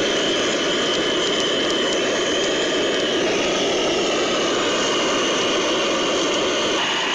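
A loud, steady hissing roar with a high, constant tone running through it.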